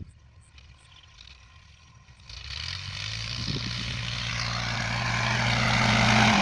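A motor engine comes in about two seconds in, with a steady low hum under a rushing noise that grows louder.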